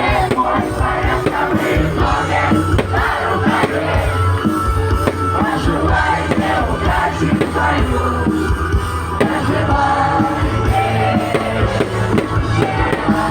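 Loud live pop music over a concert sound system, with a steady bass line and a crowd's voices mixed in.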